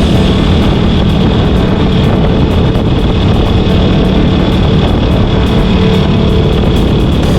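Honda CB72's 250 cc parallel-twin engine running steadily at speed, with wind rushing over the microphone.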